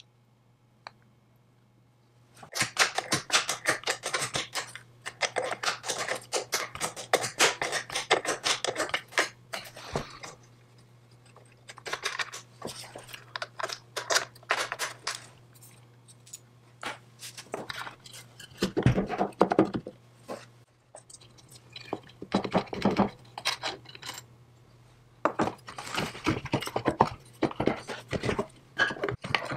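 Rapid scratching and clicking from hand work on metal parts, in several bursts of a few seconds each with short pauses between.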